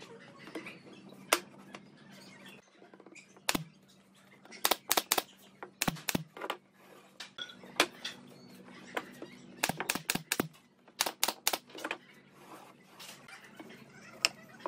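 Curved wooden pieces knocking and clacking on a wooden workbench as they are set down and fitted together into a ring: irregular sharp knocks, in quick clusters about five and ten seconds in. A faint steady low hum runs underneath.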